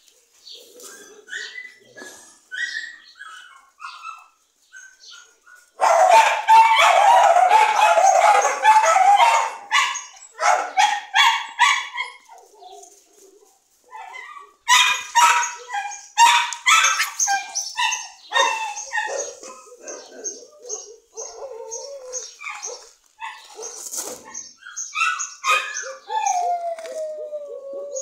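Several dogs barking and yipping, with a loud stretch of near-continuous barking from about six to ten seconds in and short repeated barks after it. A falling whine comes near the end.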